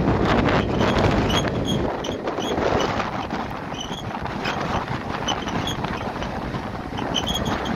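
Wind buffeting the microphone over the steady rumble of a moving rail car. The low rumble eases about two seconds in, and faint short high squeaks come several times.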